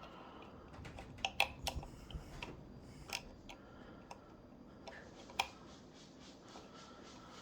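Faint handling noise with scattered sharp clicks, three of them louder than the rest, from small plastic wire connectors being fitted onto a hoverboard's control board.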